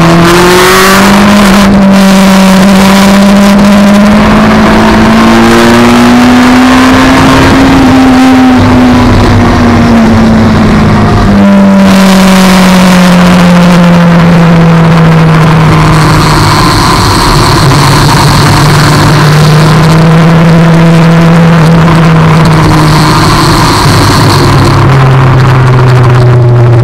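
Sport motorcycle engine running under way at low road speed, its pitch climbing slowly, dropping about eleven seconds in, then sinking and holding steady as the throttle eases. A loud rushing wind noise on the microphone runs under it.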